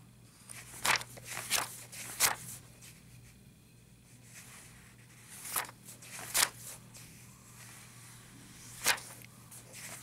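Pages of a paper workbook being turned by hand: about seven short, crisp swishes in three clusters, near the start, in the middle and near the end.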